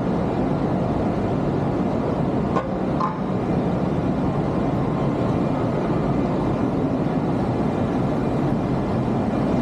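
Steady city street traffic noise from heavy rush-hour traffic, an even rumble and hiss of passing vehicles. Two brief clicks come about two and a half and three seconds in.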